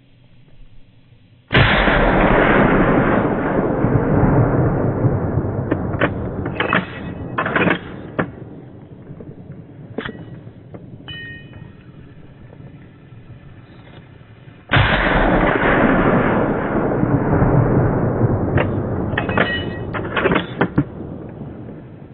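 Two gunshots about 13 seconds apart, each followed by a long rolling echo that dies away over several seconds. A few short sharp sounds come in between and after them.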